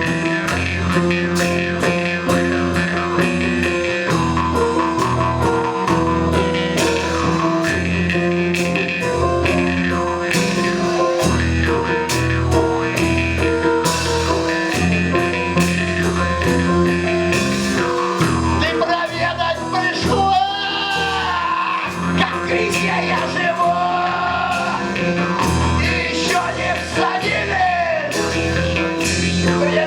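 Live band playing an instrumental blues-rock break: drums keeping a steady beat under bass and keyboard chords. From about 19 seconds in, a wavering lead line slides up and down in pitch.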